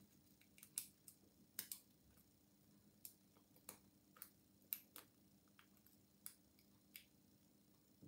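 Faint, irregular metal clicks of a lock pick and tension tool working the pins of a small cylinder cam lock, about a dozen spread unevenly over the stretch.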